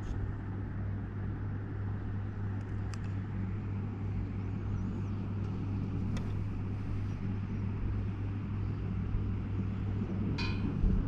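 Steady low hum with a few faint clicks, and a brief high-pitched chirp near the end.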